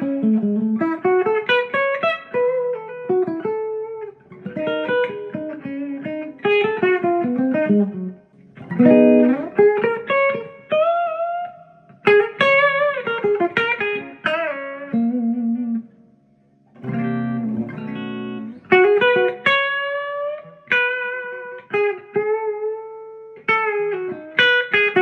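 Gibson Les Paul electric guitar with Bare Knuckle pickups being played: picked single-note lines and arpeggiated chords, with a brief pause about two-thirds through before a low chord rings out and the playing carries on.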